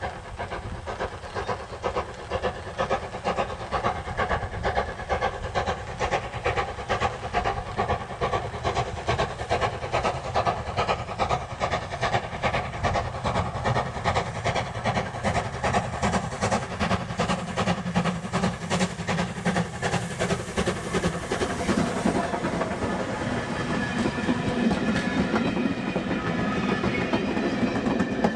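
Steam locomotive approaching under steam, its exhaust beating in a steady rhythm and growing louder. It passes a little over three quarters of the way through, and its passenger coaches follow, rolling by on the rails.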